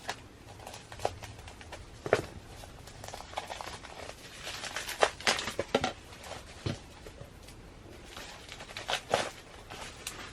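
Packaging of a CD single being opened by hand: scattered crinkling and rustling with sharp clicks and taps, the loudest about two, five and nine seconds in.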